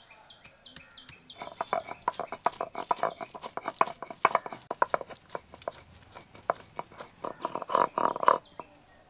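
Ginger being ground to a paste by hand on a grinding stone: a fast run of gritty knocking and scraping strokes that starts about a second and a half in, is loudest near the end and stops just before it.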